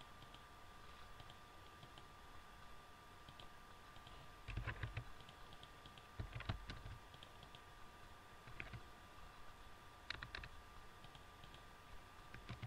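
Computer keyboard typing and mouse clicks, coming in short clusters a few seconds apart with lighter single taps between them, over a faint steady hum.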